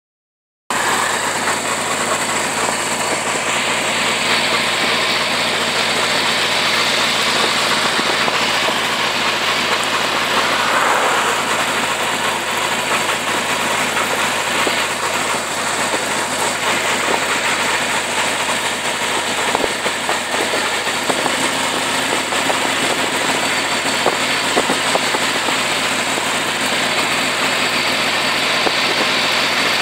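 Motorcycle engine running steadily at road speed, with wind rushing over the bike and microphone; the sound starts abruptly just under a second in.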